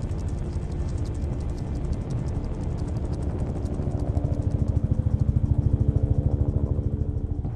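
Helicopter rotor and engine noise heard from inside the cabin: a steady drone with a fast, even beating of the rotor blades that grows stronger about four seconds in.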